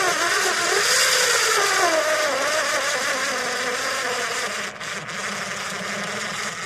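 Small motor of a cheap Toolbench Platinum electric screwdriver, running on four AAA batteries, whining with a wavering pitch as it drives a screw into wood. The pitch drops about two seconds in as the motor bogs under load: it is too weak to sink the screw even a third of the way.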